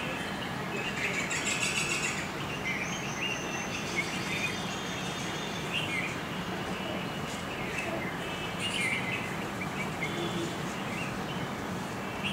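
Songbirds chirping in short, scattered phrases over a steady background hiss, with a busier flurry of calls about a second in.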